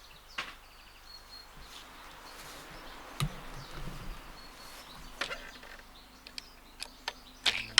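A few separate light clicks and knocks from hands working on the reefing gear's fittings, over a faint steady outdoor background noise.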